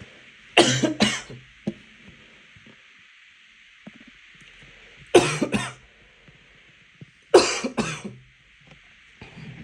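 A person coughing hard in twos after choking on water: three double coughs a few seconds apart, then a weaker one near the end.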